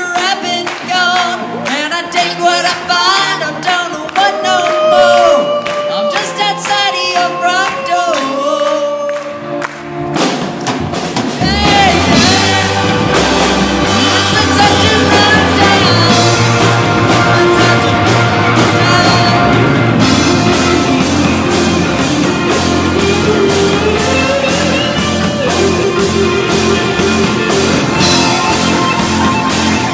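Amateur rock band playing live: singing over hand claps at first, then about ten seconds in the full band comes in, with drum kit, bass, electric guitars and keyboard, and the sound grows louder and fuller.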